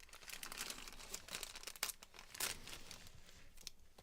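Miniature packaging crinkling and rustling as it is handled and opened, with a few sharper crackles midway before it thins out near the end.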